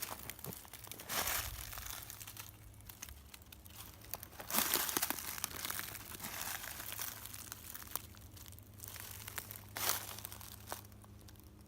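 Footsteps crunching through dry fallen leaves: a few slow, uneven crunches, the longest around the middle.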